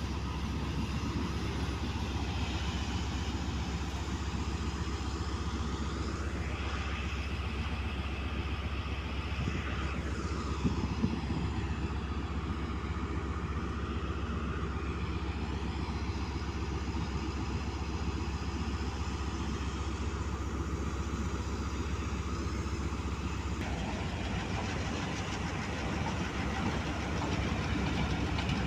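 Diesel locomotive engines running with a steady low rumble as a tanker train and then a lone locomotive move through the yard. There are two sharp knocks about ten seconds in. Near the end the sound changes as the GMCU-15 locomotive is heard.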